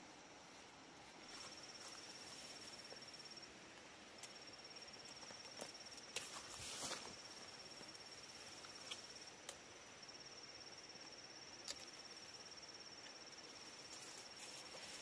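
An insect trilling faintly at a high pitch, in bouts of a few seconds with short breaks. About six seconds in comes a brief louder rustle of foliage as the undergrowth is handled.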